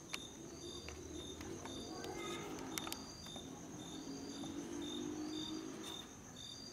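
Crickets calling at night: one steady high trill with other insects chirping in short, evenly spaced pulses, plus a few faint clicks.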